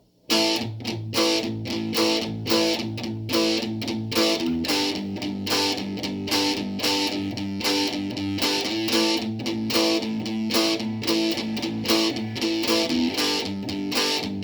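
Instrumental intro of a song: a strummed guitar playing a steady rhythm.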